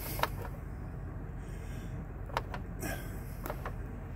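Chevrolet 5.3 Vortec V8 idling steadily, heard as a low rumble from inside the cab, with a few light clicks.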